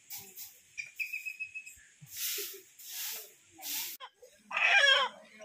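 Feathers being pulled by hand from a country chicken: three short tearing rustles, with a brief thin whistle before them. About four and a half seconds in, a goat kid gives one loud, wavering bleat.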